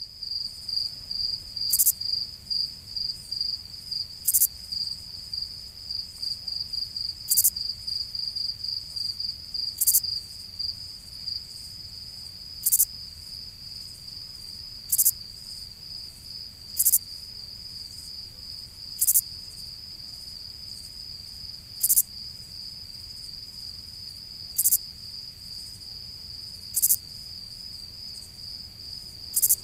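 Crickets chirping: a steady, high, rapidly pulsing trill, joined every two to three seconds by a louder, sharper chirp.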